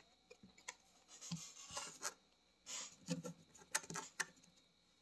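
Trading cards and pack wrappers handled by hand: soft scraping and rustling in short scattered bursts, with a few light ticks.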